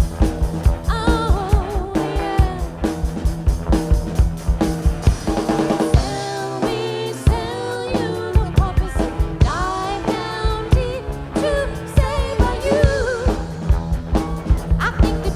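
Live rock band playing with a busy drum kit and bass under a wavering melodic lead line. The drums and bass drop out briefly about halfway through, then the groove comes back.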